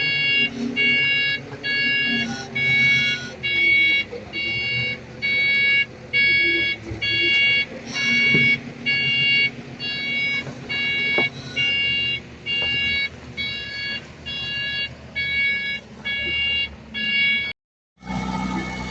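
Heavy machine's reversing alarm beeping steadily, about one beep a second, over a diesel engine running. The beeping cuts off sharply near the end, and a steady engine sound follows.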